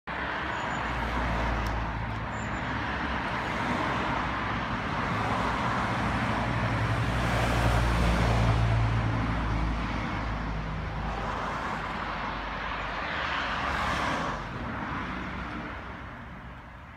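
Electric swing-arm gate openers driving a pair of wrought-iron driveway gates open, a low steady motor hum that stops about fourteen seconds in. Over it is the noise of road traffic, loudest as a van passes about eight seconds in and again as another vehicle passes near fourteen seconds.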